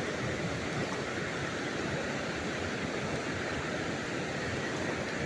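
Fast-flowing river water rushing: a steady, even noise.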